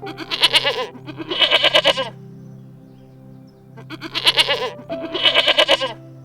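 A goat or sheep bleating four times, in two pairs of wavering, quavering calls, over soft background music with long held notes.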